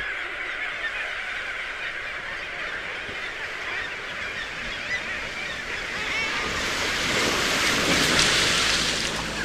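A seabird colony calling en masse, many birds at once in an overlapping clamour. A wash of surf swells up about two-thirds of the way through and then eases.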